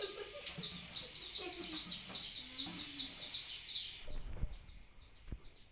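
Chickens: a dense chatter of quick, high chirps that stops suddenly about four seconds in, with a few lower clucks underneath.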